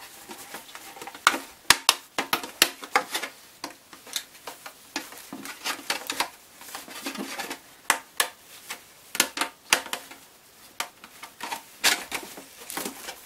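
Irregular clicks, taps and rustling as rubber edge trim is pushed onto the rim of a plastic stormtrooper helmet, the hard plastic shell knocking and creaking as it is handled.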